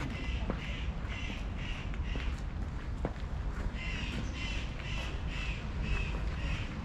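A crow cawing in two quick runs of short, evenly spaced caws, with a pause between them about three seconds in, over a steady low rumble.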